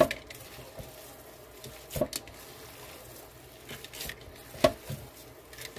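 Hands kneading raw ground beef mixed with seasonings and chopped onions in a bowl: soft squishing of the meat, with a few sharp knocks, the loudest about four and a half seconds in.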